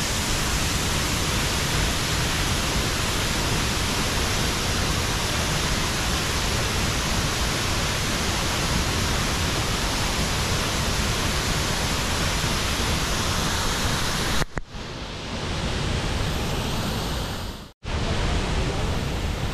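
Steady rushing roar of the Ban Gioc waterfall, heard close up, dropping out abruptly twice near the end.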